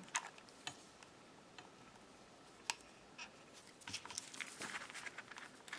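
Faint scattered clicks and rustles of hands handling a small plastic doll, crocheted pieces and a hot glue gun on a table, with one sharper click about two and a half seconds in and a busier patch of small clicks near the end.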